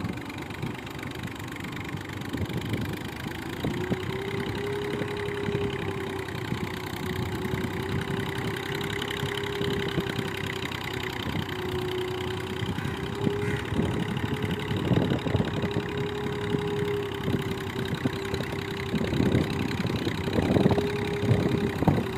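Massey Ferguson 135 tractor engine running steadily, with a steady whine that joins in about four seconds in. The engine gets somewhat louder near the end.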